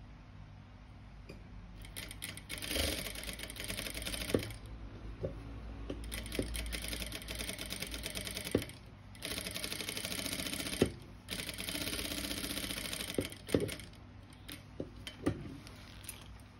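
Sewing machine stitching a seam in three runs of rapid needle strokes, starting about two seconds in, with brief stops and a few sharp clicks between runs. It stops a couple of seconds before the end.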